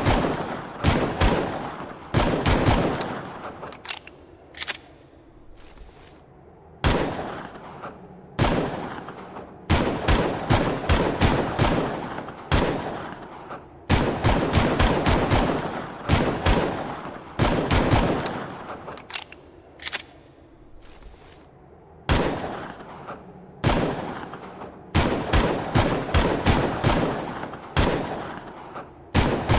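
Longslide pistol gunfire sound effect: bursts of several rapid shots again and again, each burst trailing off in a long echo, with short gaps and the odd single shot between bursts.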